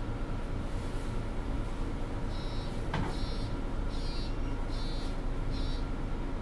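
Mercedes-Benz NG 265 city bus running steadily with a low rumble. In the middle come five evenly spaced high electronic beeps, and a single sharp click about three seconds in.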